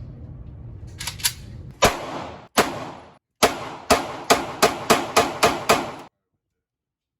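A string of about ten gunshots, the first two a little under a second apart, then faster, about three a second, each a sharp crack with a short ring. Two fainter pops come just before the first loud shot.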